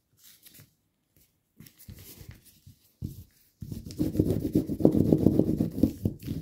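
Fingers rubbing hard along a fold in a sheet of paper pressed against a tabletop, creasing it flat: a dense, rapid rubbing in the last few seconds, after a few faint paper rustles.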